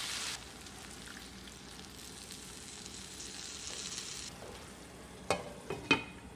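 Food frying and sizzling in a wok, the hiss dropping sharply about half a second in and fading out after about four seconds. Near the end come a few sharp clinks, like a utensil knocking against the pan.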